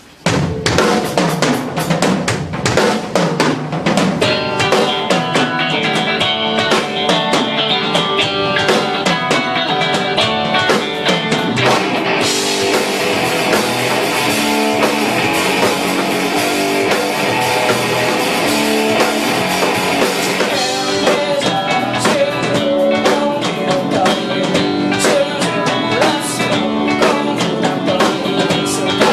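Punk rock band playing live: drum kit and distorted electric guitars crash in together all at once and keep up a loud, driving beat. From about twelve to twenty-one seconds in, the high end thickens into a steady wash of cymbal and guitar hiss.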